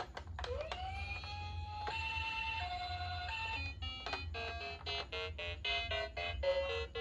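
Toy ambulance minicar's electronic siren: a tone winds up and holds, then switches to a two-tone high–low wail. From about four seconds in, a quick electronic tune of short beeping notes follows.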